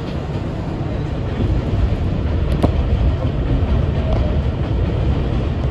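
An R62A subway car running along the track, heard from aboard: a steady, loud rumble of wheels and running gear on the rails. A brief sharp click comes about halfway through.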